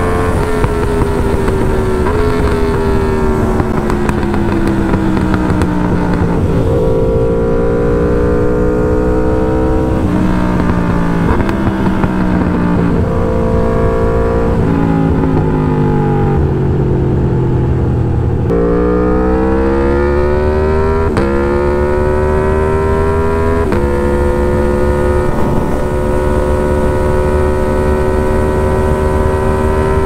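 Aprilia Tuono V4 1100 Factory's V4 engine through an SC Project S1 exhaust with no catalytic converter, heard from inside the rider's helmet. The engine note falls for long stretches, broken by several sudden steps up, then climbs quickly about two-thirds of the way in and holds steady near the end.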